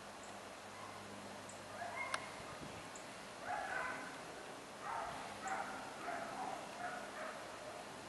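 A dog whining and yipping in a run of short, high cries that start about two seconds in.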